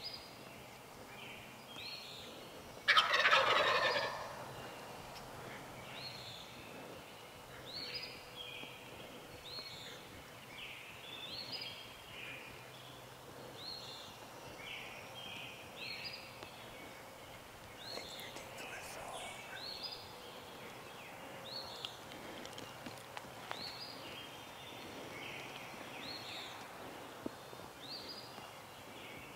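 A wild turkey gobbler gobbles once, loud and about a second long, about three seconds in. Small birds sing short repeated high notes throughout.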